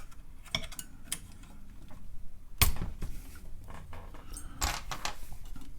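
Scattered plastic clicks and clacks of a keycap puller working keycaps off a TRS-80 Model 4 keyboard, with a sharper knock about two and a half seconds in and another a couple of seconds later.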